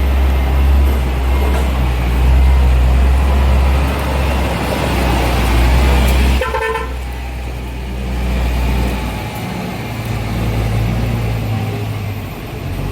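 Heavy truck engine running with a deep, steady hum; about six and a half seconds in a short horn toot sounds, after which the engine runs lower and softer.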